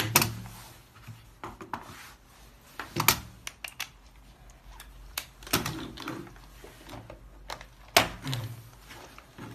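Irregular clicks and knocks as the hard attachment heads of an electric chiropractic adjusting gun are handled and fitted together. The loudest knocks come near the start, about three seconds in, and about eight seconds in.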